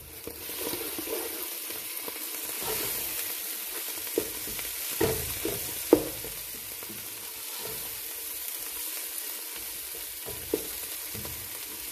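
Onion-tomato masala sizzling in oil in a nonstick pot while it is stirred with a spatula, with scraping and a few sharp knocks of the spatula on the pan, the loudest about six seconds in.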